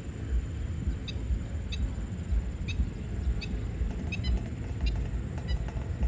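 Stilts giving short, sharp, high calls, about ten in a loose irregular series, the kind of repeated calling birds give when alarmed. Under them runs a louder, uneven low rumble.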